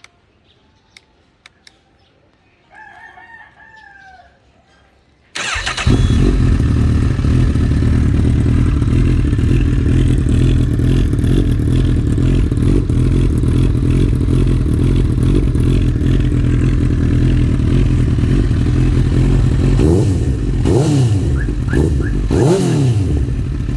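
A rooster crows once in the background. About five seconds in, a Honda CB1000R's inline-four engine, breathing through an Akrapovic full exhaust, fires up suddenly and settles into a loud idle. It is blipped in a few quick revs near the end.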